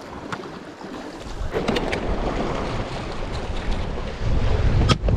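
Sea waves washing against a rocky shore, with wind buffeting the microphone. The surge swells about a second in and is loudest near the end, with a few sharp clicks, the sharpest just before the end.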